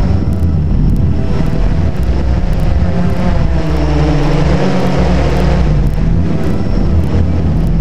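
Drone's electric motors and propellers buzzing as heard by its onboard camera, over a heavy rumble of wind on the microphone. The motor pitch dips and rises again around the middle as the throttle changes.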